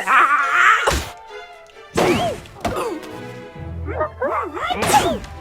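Cartoon soundtrack: a sharp thunk about a second in, then high, squeaky wordless character voices, over music.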